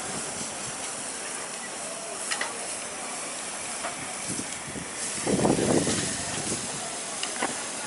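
Marinated chicken pieces sizzling on a hot grill, a steady hiss, with a few light clicks of metal tongs. A louder burst of background noise comes about five seconds in.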